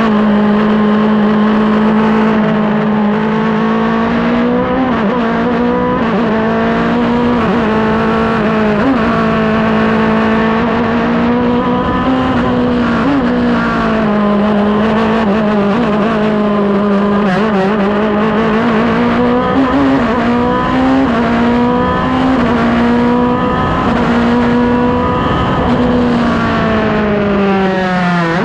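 Race car engine heard from the car itself, running at high revs under load; its pitch mostly holds steady, dips and rises briefly several times, and starts to fall near the end as the revs drop.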